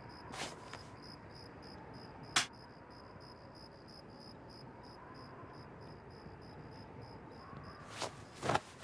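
Quiet room sound effects: a faint high chirp repeats about three times a second in the background, a sharp click comes a little over two seconds in, and two short cloth swishes near the end as a coat is snatched up and swung.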